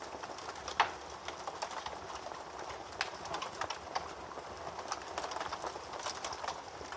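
Wood fire burning in a fireplace, crackling and popping steadily over a soft hiss, with a louder pop about a second in and another around three seconds.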